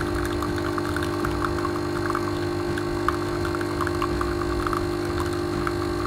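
Arissto Happymaker 2.0 capsule coffee machine brewing: its pump hums steadily as coffee streams into a ceramic cup, with small spluttering crackles throughout.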